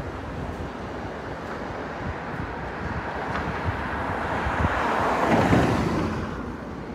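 Street traffic noise with wind buffeting the microphone; a passing vehicle swells to its loudest about five and a half seconds in and then fades away.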